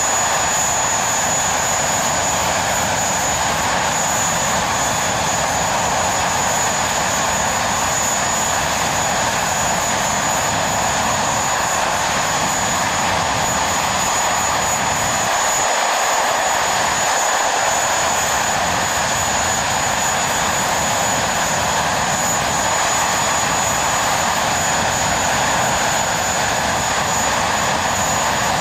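A BAC Lightning F.6's Rolls-Royce Avon turbojet running steadily on the ground, with only one of its two engines lit and no afterburner. It makes an even rushing roar with a high, steady whine above it.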